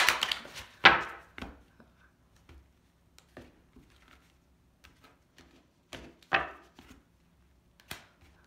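A deck of tarot cards being shuffled and laid down on a tabletop. Sharp card slaps and riffles come in the first second and a half and again around six seconds in, with light taps and clicks between.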